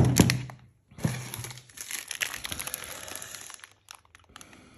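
A glass wine bottle set down on a wooden table with a sharp knock, then the plastic wrapper of a muesli bar crinkling as it is handled for a couple of seconds, fading near the end.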